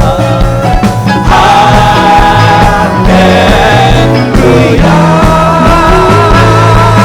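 Church worship band playing a loud, upbeat praise song with a steady drum beat, with some singing.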